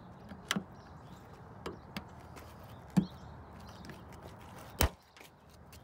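Several sharp plastic clicks and snaps, a second or so apart, as a hand tool pries at and breaks the plastic clips holding the old spoiler base to a Dodge Charger's trunk lid. The strongest crack comes about three seconds in, and a slightly longer one just before the end.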